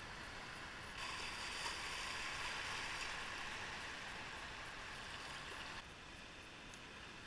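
River water rushing over a riffle and small rapid, heard from the bow of an inflatable kayak as a steady wash of noise. It jumps louder suddenly about a second in and drops back suddenly near six seconds.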